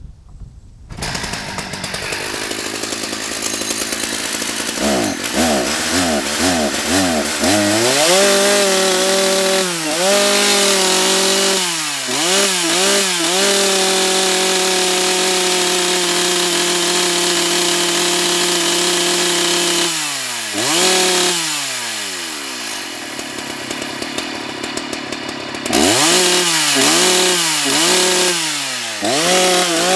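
Husqvarna 181 SE two-stroke chainsaw, its carburettor freshly adjusted, catching about a second in and idling, then blipped up and down several times and held at high revs for about twelve seconds. It then falls back to idle and is revved in quick blips again near the end.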